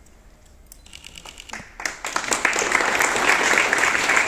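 A few light clicks, then a crowd starts applauding about one and a half seconds in, the clapping growing quickly to a loud, dense patter that carries on.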